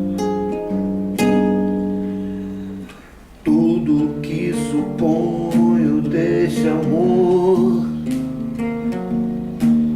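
Acoustic guitar accompaniment of an MPB song between sung lines. A chord rings and fades for about three seconds, breaks off briefly, then the plucked and strummed playing starts again.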